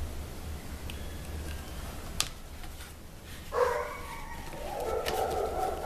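A sharp click a little after two seconds, then an animal call about three and a half seconds in, followed by a longer call near the end, over a steady low hum.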